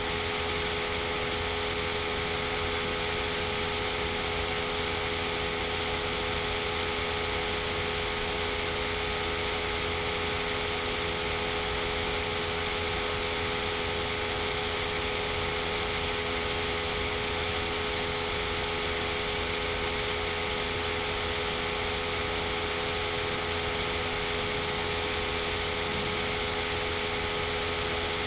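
Steady machine hiss with a constant hum and a few held tones, unchanging throughout.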